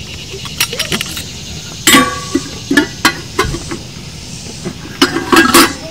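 Stainless steel coffee percolator being assembled: its metal parts clink and knock against the pot in a few short bursts, the loudest about two seconds in and again near the end.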